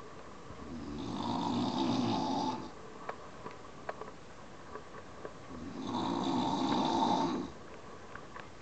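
A sleeping person snoring: two long snores, each lasting nearly two seconds, about five seconds apart, with a few faint clicks between them.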